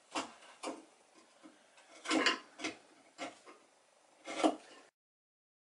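A wood chisel scraping and paring the inside of a glued-up, laminated wooden boat hull in short, separate strokes, removing squeezed-out glue and smoothing the interior. The strokes cut off abruptly about a second before the end.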